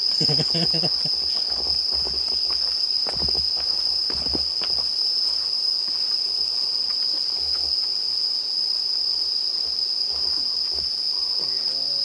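Night insects chirring in one continuous, steady high-pitched tone. A few footsteps sound about three to four seconds in.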